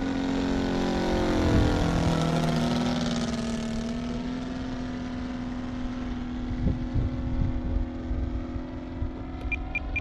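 Saito FG-60R3 three-cylinder gasoline radial engine on a giant-scale P-47 Thunderbolt RC model flying past, its pitch dropping as it goes by about one to two seconds in, then running on steadily as the plane flies away. A few short high beeps near the end.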